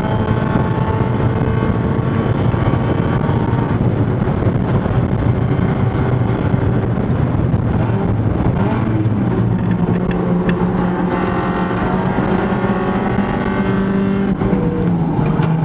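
Mazda Spec Miata race car's four-cylinder engine running hard, heard from inside the stripped cockpit as a steady drone over road and wind noise. Its pitch shifts about nine seconds in, then holds steady again.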